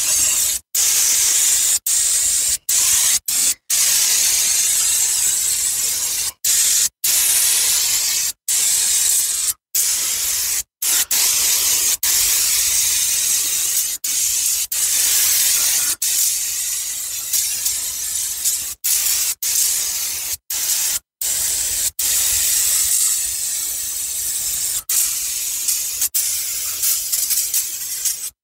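Aerosol brake cleaner spraying in a loud hiss, held for a second to several seconds at a time with many brief stops between squirts, washing spilled coolant off the engine.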